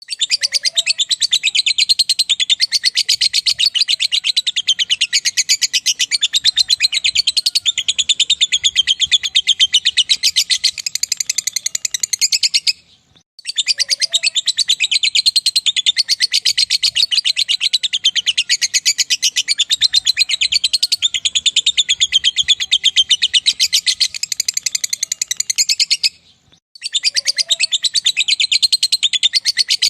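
Lovebird giving 'ngekek': a long, rapid, unbroken chatter of shrill notes. It comes in two bouts of about 13 seconds, each ending in a brief pause before the next begins.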